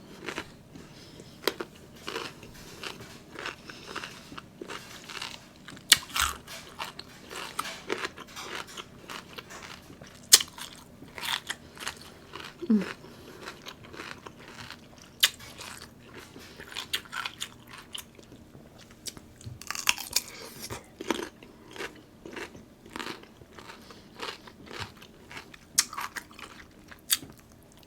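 Close-up eating sounds from a seafood boil: biting, crunching and chewing, with many irregular sharp clicks and crunches.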